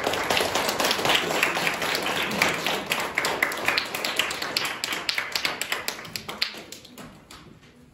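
A small audience applauding, with separate hand claps audible. It starts suddenly, holds for about six seconds, then thins out and dies away near the end.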